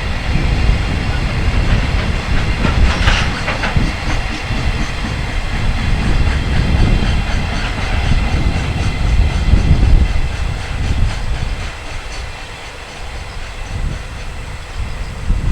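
Freight train hauled by an electric locomotive passing close by: a heavy rumble with wagon wheels clattering over rail joints. It eases off for a couple of seconds near the end, then picks up again.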